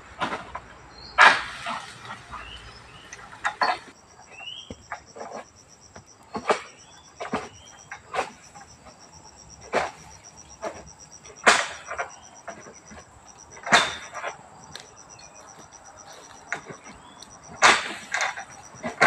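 Irregular sharp cutting strokes of a harvesting sickle slicing through oil palm fronds and fruit-bunch stalks, about one every one to two seconds. A steady pulsing insect trill runs underneath, starting a few seconds in.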